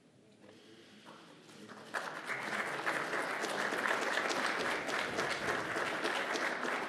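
Seated audience applauding, the clapping breaking out about two seconds in and carrying on steadily after a couple of quiet seconds.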